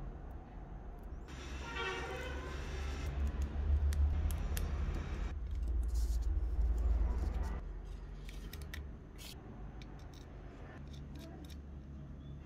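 Small metal parts of an electric bell's mechanism being handled and fitted by hand: a screw, nuts and washers on the steel backplate giving short, scattered clicks. A low rumble runs underneath and swells for a few seconds in the middle.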